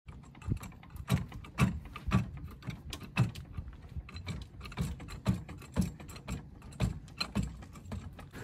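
Ratchet wrench clicking in repeated strokes, about two a second, each with a low knock, as it works loose a fastener under a car's engine for an oil change.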